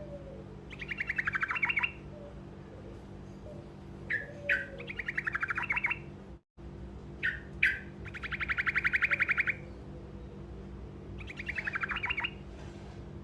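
Truco bird singing short rolling trills: four fast, even runs of notes, each about a second long, some led by one or two sharp single notes. A steady low hum runs underneath.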